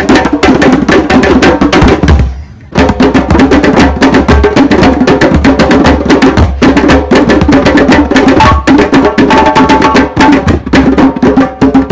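Several djembes played together by hand in a fast, dense group rhythm. The playing breaks off for about half a second a little over two seconds in, then starts again.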